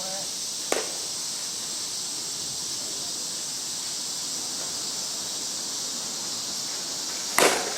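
Two sharp knocks of a softball being struck, typical of batting practice: a faint one about a second in and a louder one near the end. Under them runs a steady high hiss.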